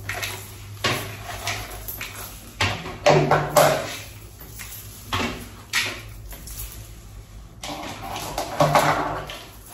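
Irregular clicks and knocks of things being handled, with two louder clusters of clacks, one a few seconds in and one near the end.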